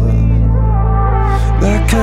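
Background music: an edited-in song holding a steady low bass chord, with faint sustained notes above it.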